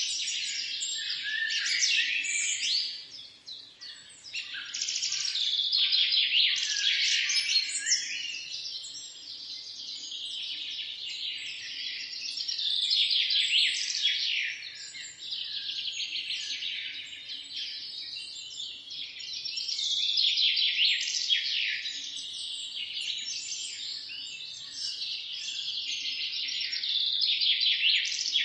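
Many small birds chirping together in a dense, continuous chatter of quick high chirps, swelling and fading in loudness in waves.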